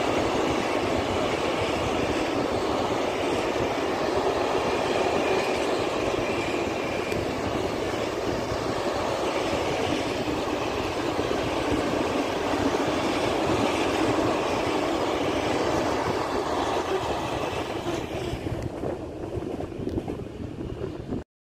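Open freight wagons of a coal train rolling past on the rails, a steady noise of wheels on track. It thins out as the last wagons go by near the end, then cuts off abruptly.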